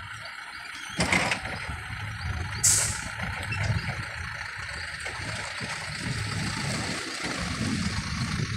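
Toyota forklift running and manoeuvring, its engine rumbling unevenly. There is a clatter about a second in and a short sharp hiss just under three seconds in.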